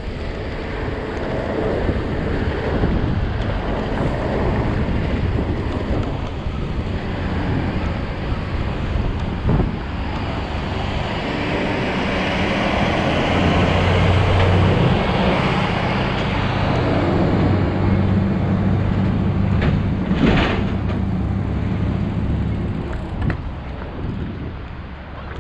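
Wind rushing over the microphone of a helmet-mounted camera while cycling. A low steady hum joins in from about halfway and fades out near the end.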